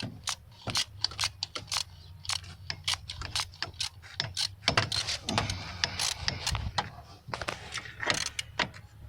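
Metal hand tools clicking and clinking irregularly in the engine bay as a spark plug is worked loose with a ratchet, socket and swivel extension, over a low steady hum.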